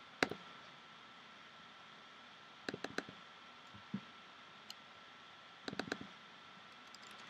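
Faint, scattered clicks and light taps in three small clusters, about a quarter second in, around three seconds in and around six seconds in, with a soft knock or two between them, over a steady hiss and a faint high hum.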